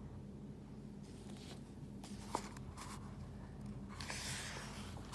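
Soft paper rustling as a picture-book page is handled and turned, with a sharp little click about two seconds in and a louder rustle near the end. A faint steady low hum runs underneath.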